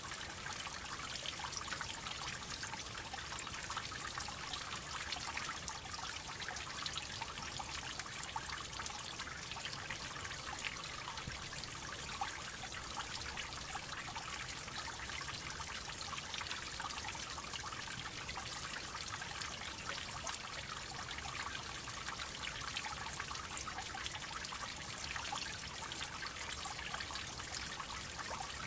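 Water droplets falling steadily: a dense patter of many small drips over a continuous trickle, even and unchanging.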